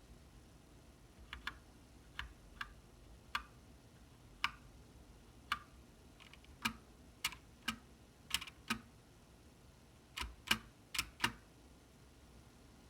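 GMMK mechanical keyboard with linear Gateron Black switches and ABS doubleshot keycaps, keys pressed one at a time. A little over a dozen separate clacks come at irregular gaps, some in quick pairs, and stop a little before the end.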